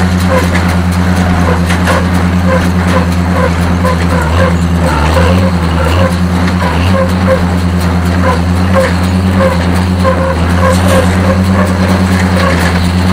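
Oliver small square baler running behind a tractor, its pickup reel feeding loose hay, over the steady drone of the tractor engine. Short clicking chirps repeat evenly about twice a second from the working machine. This is a test run after the knotter's belt hook and wiper arm were adjusted.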